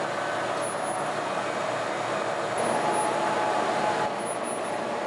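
Laser engraving machine running as it burns lines into an enamel whiteboard surface: a steady whir and hiss, with faint, brief high whines now and then.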